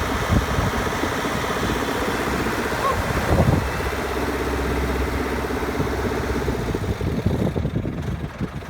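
Diesel engine of a farm machine (rice harvester or tractor) running steadily, with a brief louder swell about three and a half seconds in.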